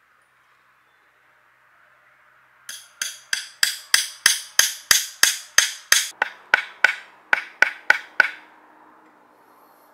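A tool striking bamboo in a steady series of about eighteen sharp blows, roughly three a second, each with a short ringing decay, stopping near the end.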